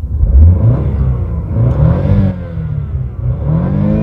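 BMW car engine revved in Park, its pitch climbing and falling back about three times, the revs reaching about 6,000 rpm near the end.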